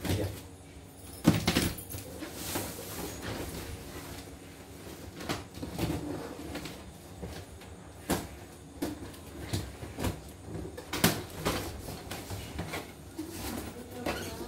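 Packaging being pulled off a boxed machine: bubble wrap and plastic sheeting rustling and crinkling, broken by a few sharp knocks of handling, the loudest about a second in.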